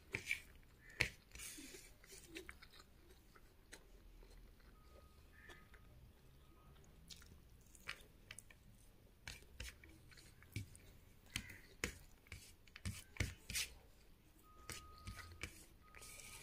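Someone eating rice by hand: soft chewing and wet mouth clicks, irregular, with fingers squishing and gathering the rice. The clicks grow more frequent in the second half.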